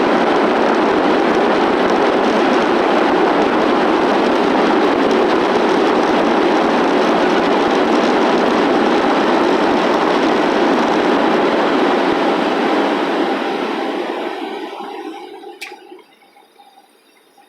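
Jet airliner cabin noise on the landing rollout: a loud, steady rushing roar of the engines and the wheels on the runway. It dies away over a few seconds near the end as the plane slows.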